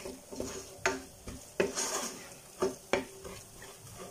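Wooden spatula stirring and scraping a thick masala of onion and spice powders in a stainless steel pot, with a faint sizzle of the paste frying in oil under it. The strokes come as separate scrapes at irregular intervals. The spice powders are being roasted until the oil separates.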